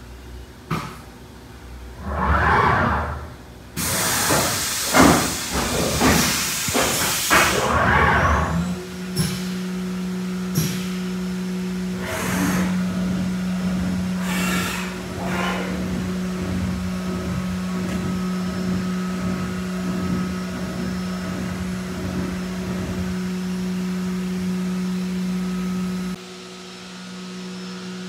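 Haas UMC-750 five-axis CNC mill at work: irregular machine noise with a loud hiss lasting about four seconds, then the spindle settles into a steady hum with scattered clicks. It drops quieter a couple of seconds before the end.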